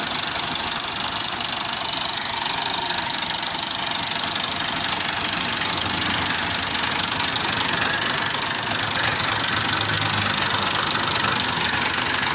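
Massey Ferguson 240 tractor's three-cylinder diesel engine idling steadily, a little louder from about halfway through.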